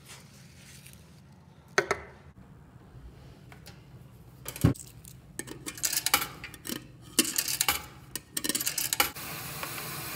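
Quarters clinking and the coin slide of a coin-operated Whirlpool commercial top-load washer clacking as coins are loaded and the slide is worked, after two single knocks earlier on. A steady hiss starts near the end.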